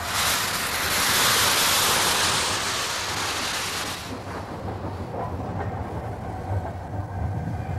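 LNER A4 Pacific steam locomotive No. 4468 Mallard moving off slowly. A loud hiss of steam from the open cylinder drain cocks at the front lasts about four seconds and then dies away, leaving a low rumble of the engine and wheels.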